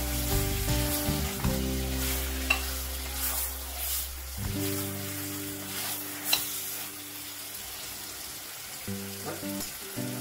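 Marinated mutton frying on high heat in a steel pressure cooker, sizzling steadily as a wooden spatula stirs it, with two sharp knocks of the spatula against the pot.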